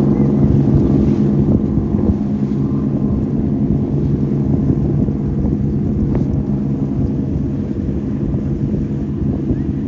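Engines of a large party fishing boat passing at cruising throttle: a steady low drone that eases slightly as it moves off, with the rush of its wake and wind on the microphone.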